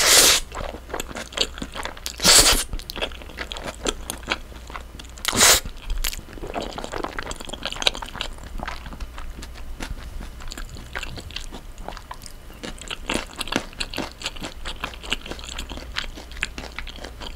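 Close-miked eating of cream linguine with sliced green chillies: a loud slurp as the noodles go in at the start and two more loud slurps about two and five seconds in, then steady wet chewing full of small clicks and crunches.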